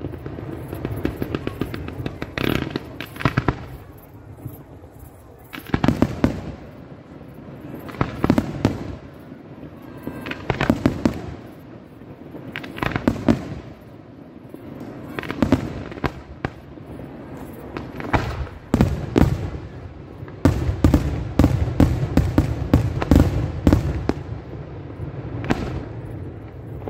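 Pirotecnica Paolelli aerial fireworks display: shells launching and bursting, a group of booms and crackles every couple of seconds. The bangs come thick and fast for several seconds about two-thirds of the way through.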